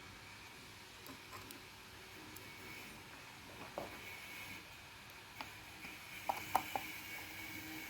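Faint, scattered small clicks and taps of plastic parts being handled while a car door lock mechanism is taken apart, with a quick run of three clicks near the end.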